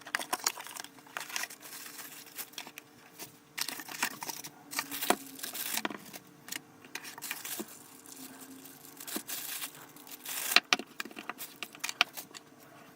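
Packaging being handled and opened: crinkling and rustling with scattered clicks and knocks, over a faint steady hum.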